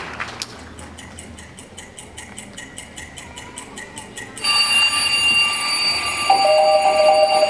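Recorded clock ticking, about four ticks a second, played over the hall's loudspeakers. About four seconds in it gives way suddenly to a louder, steady electronic alarm sound, with beeping tones near the end that settle into one held tone: an alarm-clock wake-up opening a morning-exercise dance track.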